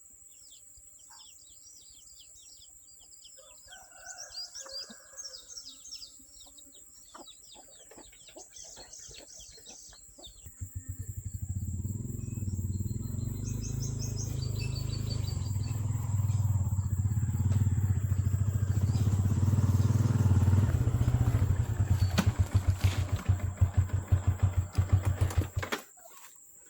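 Birds chirping, then about ten seconds in a small engine starts running, low and steady. It grows louder, turns uneven and pulsing, and cuts off abruptly shortly before the end.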